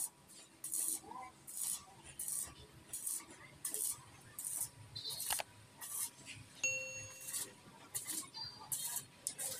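Stick-welding arc crackling in short bursts, roughly one every 0.7 seconds, as the electrode is struck and broken off in dabs to tack a steel padlock hasp to an iron folding door. A brief ringing ding sounds a little past the middle.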